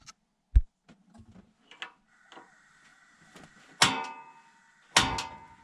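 Handling sounds at a small gas stove: a dull thump, small clicks as a burner knob is turned, and two sharp metallic strikes that ring on, about four and five seconds in.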